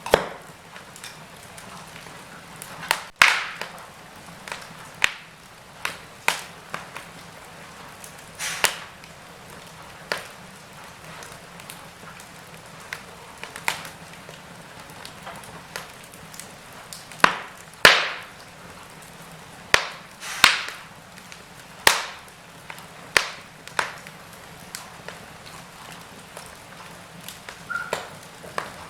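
Wood fire in a fireplace crackling, with sharp, irregular pops every second or two over a low, steady hiss.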